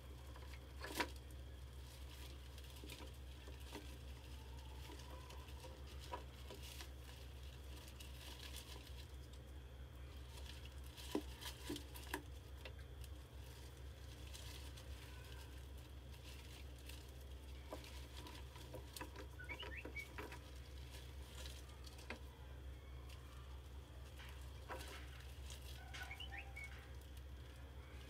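Faint, scattered light taps and scratches of a mouse's claws on a plastic water-bottle trap and a wooden plank, over a low steady hum, with a few faint high chirps about two-thirds of the way in and again near the end.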